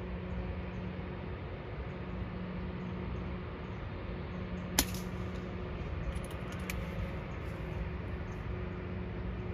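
A single shot from a Brocock Atomik XR .22 PCP air rifle about five seconds in, one sharp crack, followed a second or two later by a few light clicks, over a steady low hum.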